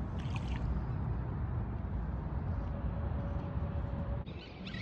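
Shallow water sloshing and lapping, under a steady low rumble. About four seconds in, the sound changes abruptly and faint short chirps come in.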